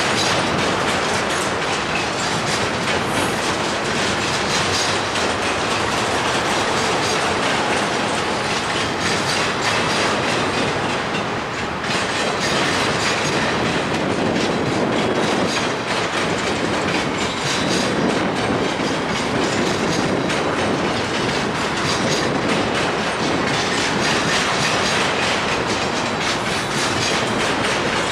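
Double-stack intermodal container well cars of a freight train rolling past at speed. A steady loud rolling noise runs throughout, with the clacking of wheels over rail joints.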